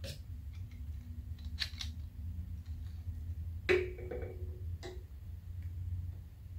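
A few light clicks and taps of metal pipe fittings being handled and screwed together at an air compressor's regulator. The loudest is a short ringing clink about three and a half seconds in, over a steady low hum.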